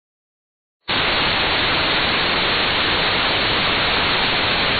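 Television static hiss laid on as an end-screen effect: dead silence, then a steady, loud hiss that starts suddenly about a second in.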